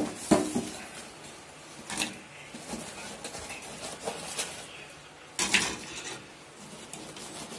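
Steel ladle and fried fish pieces knocking and clinking against an aluminium kadai and a steel plate as the pieces are dropped into pickle masala: a few scattered clinks, the loudest clatter about five and a half seconds in.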